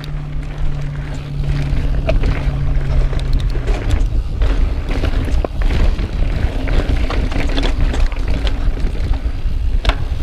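Mountain bike riding down a rocky dirt trail: wind buffeting the camera microphone as a heavy low rumble, with the tyres and frame rattling, clicking and knocking over the rough ground.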